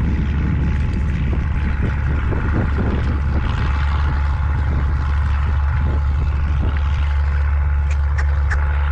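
Wind buffeting the microphone: a loud, steady low rumble, with a few faint clicks near the end.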